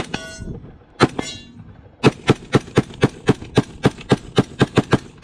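Rifle firing: one shot, another about a second later, then rapid fire at about four shots a second, quickening near the end.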